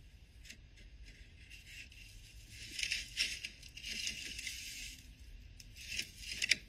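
Light, irregular scratching and rustling from a cat pawing and scrabbling inside a wooden Christmas tree collar, with a few louder scrapes about three seconds in and near the end.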